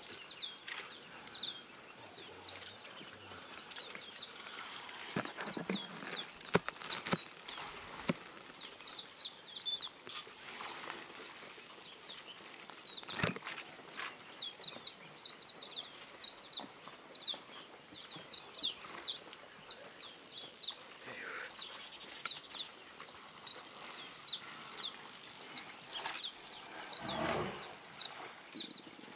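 Small birds chirping over and over, a dense stream of short, high, falling chirps, broken by a few sharp knocks and a brief low sound near the end.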